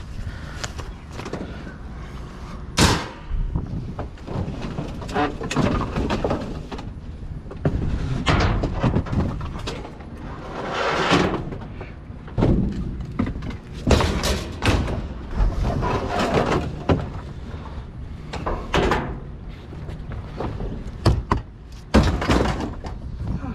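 Irregular knocks, thuds and scraping of junk being shifted around and pulled out of a dumpster, with a few sharp bangs, the loudest about three seconds in, near the middle and near the end.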